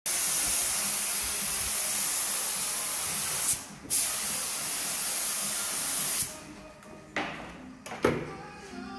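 Compressed-air spray gun hissing as it sprays activator over a hydrographic printing film floating on the water of a dipping tank. The spray stops for a moment about three and a half seconds in, starts again, and cuts off a little after six seconds. Two knocks follow near the end.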